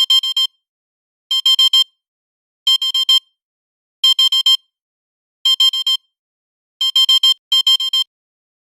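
Digital alarm clock beeping: clusters of four quick high-pitched beeps, repeating about every second and a half, until it stops near the end.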